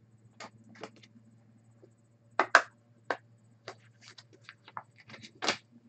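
Trading cards and card packs being handled: a string of short, sharp clicks and taps at uneven intervals, the loudest pair about two and a half seconds in.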